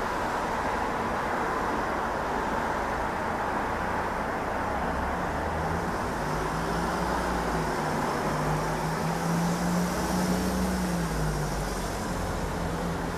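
Steady outdoor engine rumble. An engine tone comes in about five seconds in, rises a little and then falls away a second or so before the end.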